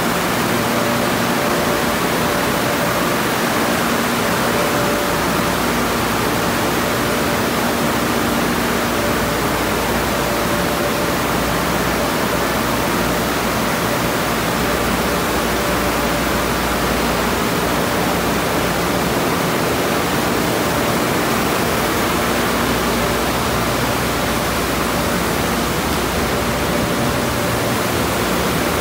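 Steady rush of water spray and running car wash tunnel equipment, with faint steady motor hums underneath and no sudden changes.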